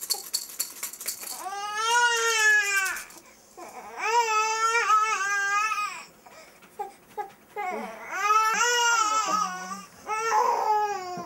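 Newborn baby crying: four long, high-pitched cries with short breaks between them.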